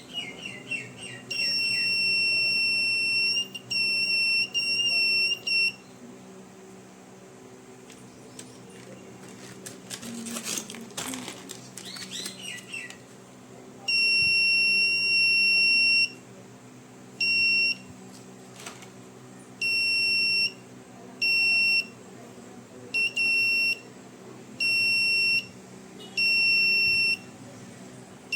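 Buzzer of a homemade laser-and-LDR security alarm sounding a steady high beep in about eleven bursts of uneven length, from well under a second to about two seconds. This is the alarm going off each time the laser beam on the light sensor is broken. A low steady hum runs underneath, and a few faint clicks and chirps fill a pause in the middle.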